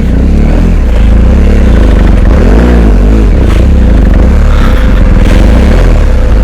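BMW R1250GS Adventure's boxer-twin engine running loud, its revs rising and falling as the bike is ridden through deep ruts on a dirt track.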